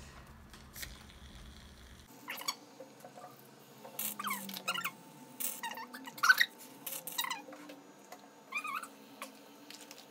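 Aerosol can of shaving foam being pressed in short spurts, hissing and sputtering with squeaky tones as the foam squirts out.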